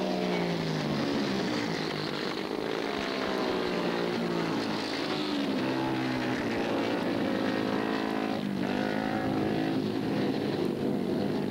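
Racing sidecar outfits' engines running hard on the dirt track, their pitch falling and climbing again several times through the lap.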